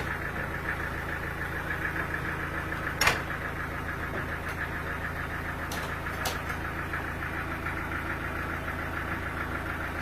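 An engine running steadily at a constant speed, with one sharp knock about three seconds in and a couple of faint clicks later.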